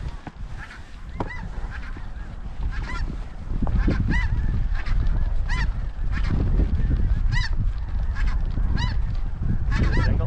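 Snow geese calling in a steady string of short, high, yelping notes, over wind buffeting the microphone that grows stronger about three and a half seconds in.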